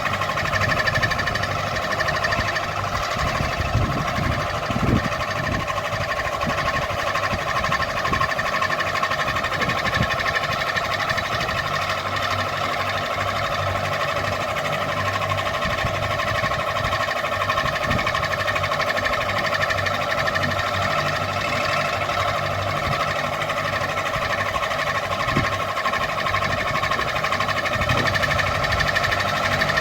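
Ceiling fan running: a steady whine with irregular low knocking and rattling underneath.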